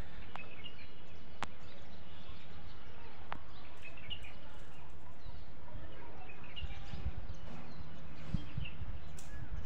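Steady outdoor background noise with faint, scattered chirps of small birds. There are two sharp clicks in the first few seconds and low rumbles on the microphone near the end. The peafowl does not call.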